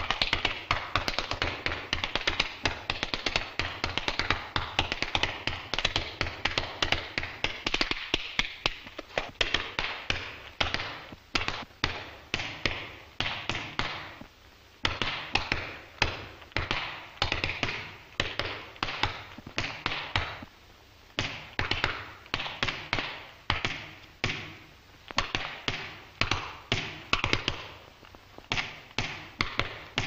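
Tap shoes striking a stage floor in a solo tap dance with no music: fast continuous runs of taps at first, breaking up about halfway through into shorter phrases separated by brief pauses. The rhythm is tapped out as a Morse code message.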